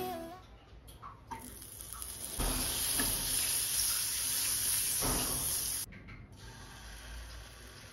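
Butter sizzling as it melts in a hot nonstick frying pan while a silicone spatula spreads it. It is a steady hiss that starts about two seconds in and cuts off suddenly near the end.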